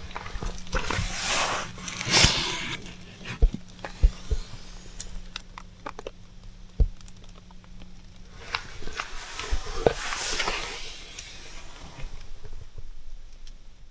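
Rustling with scattered knocks and clicks, like things being handled and moved about. The rustling swells twice, near the start and again about two-thirds through, and a faint low hum stops partway.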